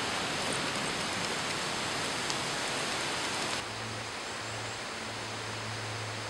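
Waterfall water rushing in a steady, even roar. About three and a half seconds in it drops suddenly to a quieter rush, with a low steady hum underneath.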